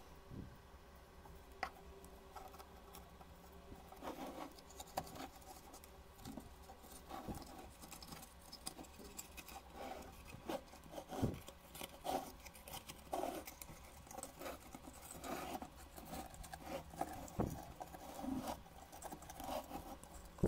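Close handling noise of fingers working jute twine onto small wooden fence pieces: irregular rustling, scratching and light taps, over a faint steady low hum.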